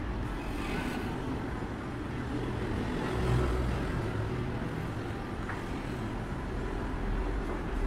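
Steady low background rumble with faint hiss and a few soft ticks.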